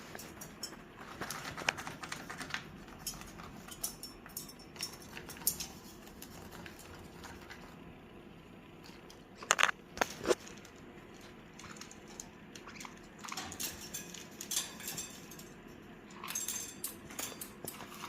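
Caique parrot rattling a piece of metal in its cage: scattered metallic clinks and jangles, with a cluster of three loud, sharp sounds about halfway through.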